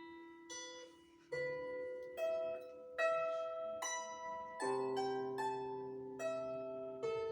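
Solo instrumental music on a plucked or struck string instrument: a slow, gentle melody of single ringing notes, each left to die away. Fuller chords with lower notes come in about halfway through.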